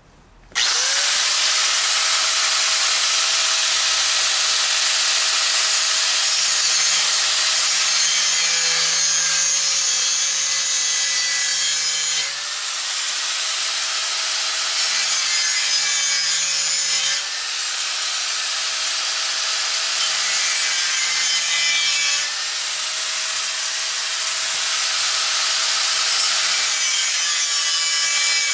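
Angle grinder with a cutting disc switched on about half a second in, its motor whine rising to speed, then grinding steadily through a metal chair-frame tube. The motor pitch sags a little as the disc bites, and the loudness dips briefly three times.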